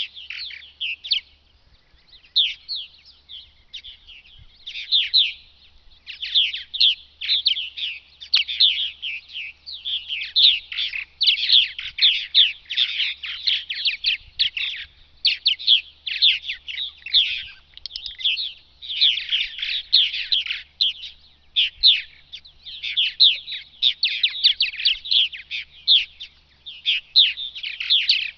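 Purple martins calling and singing around their gourd nest rack: quick chirping calls from several birds, nearly nonstop with a few short pauses.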